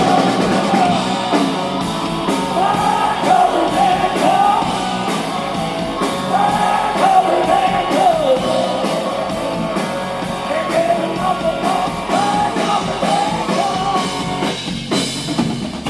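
Live blues-rock band playing an instrumental passage between sung lines, with a lead melody that bends up and down in pitch in short phrases over the band.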